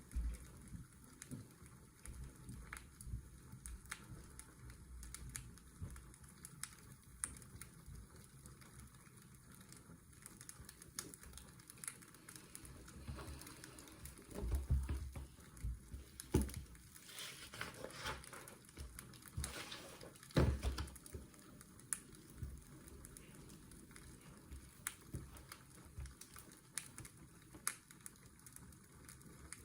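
Fireplace crackling: irregular sharp snaps and pops over a steady low washing-machine hum used as white noise, with a few louder knocks near the middle.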